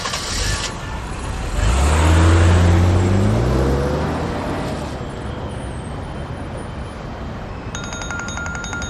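Car engine pulling away: it revs up about two seconds in, its pitch climbing as the car accelerates, then dies away into steady road noise.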